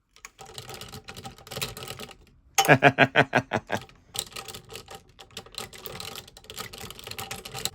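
Hard plastic toy robot parts clicking and rattling rapidly as they are handled and clipped together, in three bursts, the loudest about a third of the way in.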